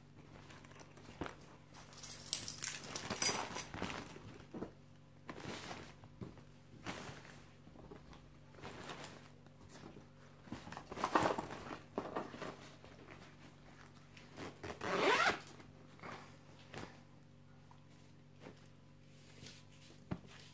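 Zippers on a canvas tote bag being pulled open and shut, in a series of separate rasping zips with the fabric rustling as the bag is handled; the loudest come about three, eleven and fifteen seconds in.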